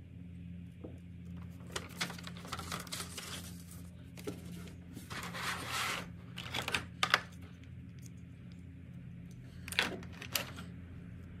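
Unboxing handling sounds: the paper instruction manual rustling, and hands working in a plastic packaging tray, in short bursts of crinkling and a few sharp clicks. A steady low hum runs underneath.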